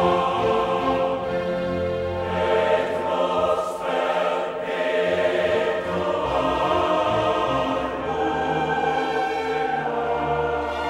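Choral music: a choir holding long chords.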